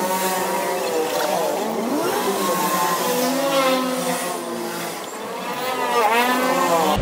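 Motorcycle engine revving, its pitch rising and falling again and again, with a sharp rise and drop about six seconds in.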